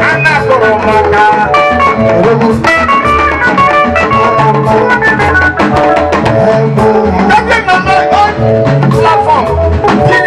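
Music track with a drum beat and melodic instruments playing.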